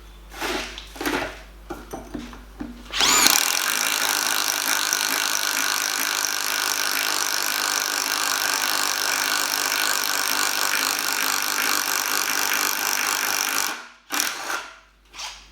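Bosch 12 V impact driver boring a 22 mm spade bit into wood, struggling under the load. After a few short knocks, it spins up with a rising whine about three seconds in, runs steadily for about ten seconds, then stops suddenly.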